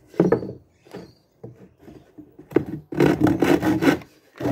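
A handsaw cutting a pine board in quick back-and-forth strokes, mostly in the second half, after a few scrapes and knocks as the board is set in place.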